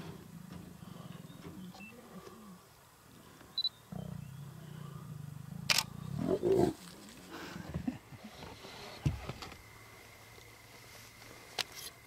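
Lions snarling: one short, loud growling snarl about six seconds in from a male lion and lioness at close quarters, with smaller growls after it. A sharp click comes just before it and another near the end, over a low steady hum.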